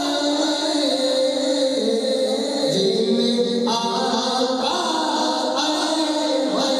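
Devotional naat singing without instruments: voices holding long, sustained notes that shift slowly in pitch, backed by a chorus-like drone.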